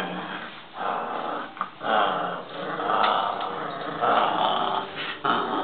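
Small dog growling in several bouts while tugging on a fabric toy: play growling in a game of tug-of-war.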